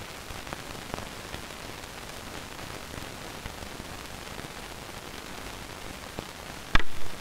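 Steady hiss of an old film soundtrack with a few faint clicks. Near the end comes a single sharp, loud knock.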